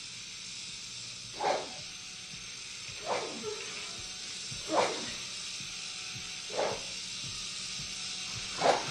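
Gas hissing steadily from an opened ether cylinder valve, with a man's short gasps breaking in five times, about every one and a half to two seconds.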